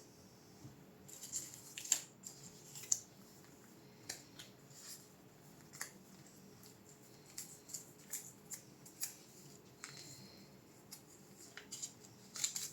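Faint, irregular light clicks and ticks of small parts and hand tools being handled during work on a graphics card, a few sharper clicks standing out about two and three seconds in and near the end.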